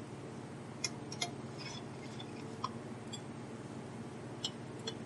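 Hand screwdriver tightening the chart-plate screws in a metal pressure-recorder case: a handful of light, scattered metallic clicks and ticks over a steady low hum.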